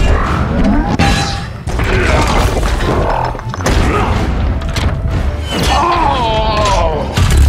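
Action-film fight soundtrack: dramatic music under heavy booms and crashing impacts from a robot battle. About six seconds in, a wavering pitched sound rises over the mix.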